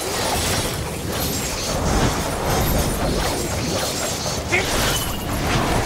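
Film fight sound effects: a metal chain whip rattling and clinking as it lashes, mixed with heavy crashing impacts.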